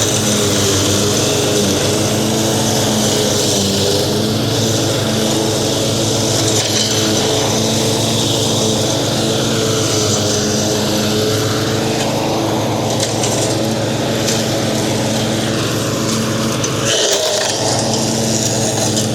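A ten-year-old Craftsman riding lawn mower's engine running steadily as the mower is driven, with the low hum dropping out briefly about two seconds before the end.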